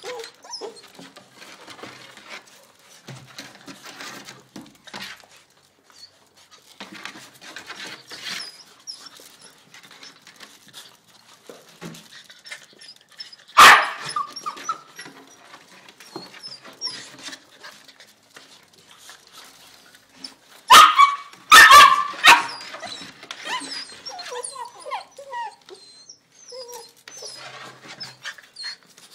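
Bull terrier puppies playing: a sharp bark or yelp just before the middle and a quick run of three more about three-quarters through, with small high whines and scuffling between.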